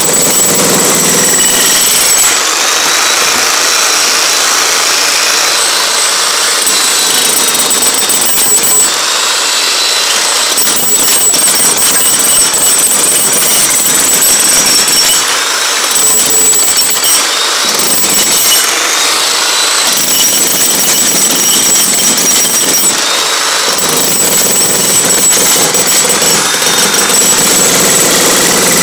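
Corded electric demolition hammer running continuously, its chisel bit rapidly pounding into and breaking up a concrete floor, with a high motor whine over the hammering. The low thudding of the bit in the concrete briefly drops away a few times as the tool is shifted.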